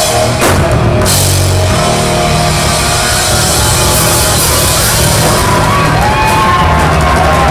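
Live rock band playing loud: distorted electric guitars, electric bass and a drum kit with cymbals, no singing. A higher, wavering melody line comes in about halfway through.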